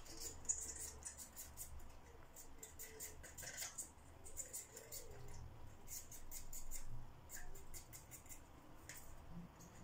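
Kitchen knife slicing runner beans held in the hand: a quick, irregular run of faint, crisp snicks as the blade cuts through the pods.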